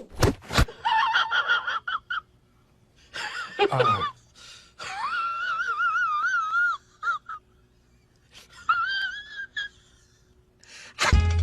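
A voice making several drawn-out, wavering wailing calls with quiet gaps between them; the longest lasts about two seconds, a little before the middle.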